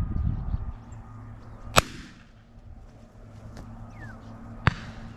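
Two shotgun shots about three seconds apart, each a sharp crack with a short echo.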